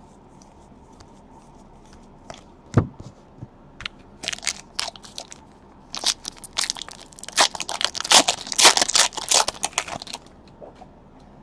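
Foil trading-card pack wrapper being torn open and crinkled by hand: scattered crackles, then a dense run of crinkling and tearing from about six seconds in that stops near ten seconds. A single thump comes about three seconds in.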